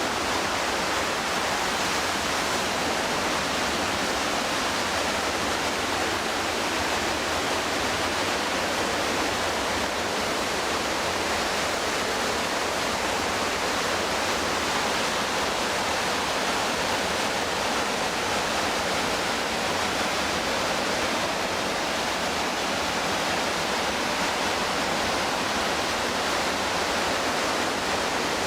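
The McKenzie River's water rushing steadily, an even, unbroken rush with no let-up.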